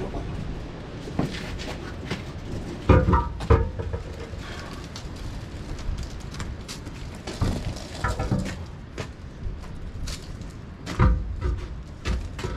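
Irregular metal clanks and knocks, several ringing briefly, over a steady low rumble of wind on the microphone.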